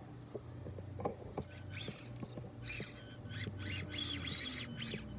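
Axial SCX24 1/24-scale RC crawler's small electric motor and gears running with a low hum as it crawls over rocks, with scattered clicks of the tyres and chassis on the stones, its pitch sinking slightly near the end. Short high bird-like chirps come in over it from about two seconds in.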